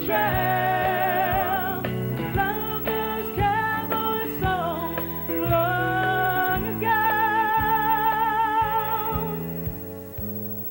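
A woman singing lead with a live band, her voice wavering with wide vibrato over a steady bass line and guitar. She holds one long note a little before the end, and then the band thins out.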